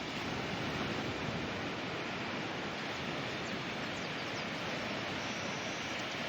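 Ocean surf washing on a beach: a steady rush of breaking waves with no distinct single crash.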